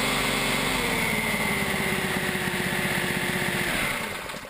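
Single-cylinder GX200-clone engine running steadily, spinning a belt-driven 3D-printed Roots supercharger, with a faint high whine over the engine note. About four seconds in, the engine slows and dies away as it is shut off.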